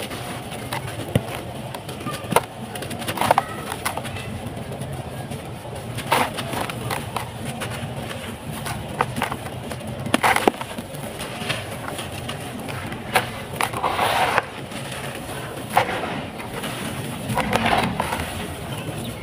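Dry, stony sand-mud and cement lumps crushed by hand, crackling and grating, with handfuls of grit and dust pouring down into a container in several short rushes.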